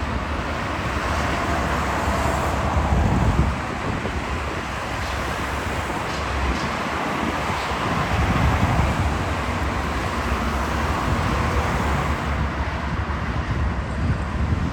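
Wind buffeting the microphone in uneven gusts over a steady hiss of road traffic.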